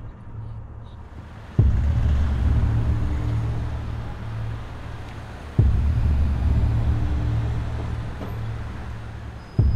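Background music: a deep bass boom struck about every four seconds, three times, each one ringing on as a low held note and slowly fading. Faint street and traffic noise lies underneath.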